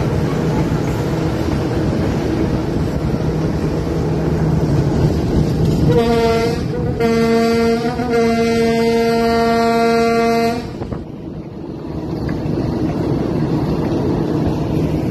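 Passenger train running along the track, heard from an open coach window, with the TGM6 diesel locomotive's horn sounding about six seconds in: a short blast, then a long blast of three to four seconds on one steady pitch.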